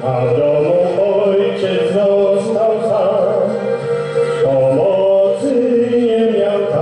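A man singing into a microphone over instrumental backing music, holding long notes with a wavering vibrato.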